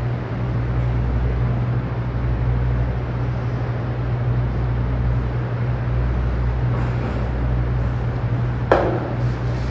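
Steady low hum with a constant background hiss, and one sharp knock near the end.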